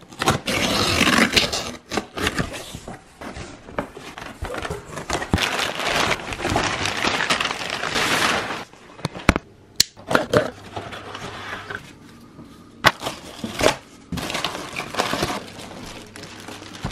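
Cardboard packaging being opened: a blade slitting the box tape, with packing paper and plastic wrap rustling and crinkling, and several sharp clicks and knocks in the second half.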